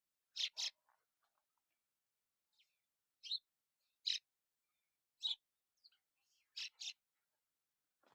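A bird calling in short, sharp, high notes, some single and some in quick pairs, spaced about a second apart with silence between them.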